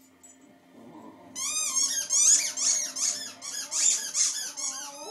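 A dog giving a fast run of short, high-pitched squeaky whines, each cry rising and falling. The run starts about a second and a half in.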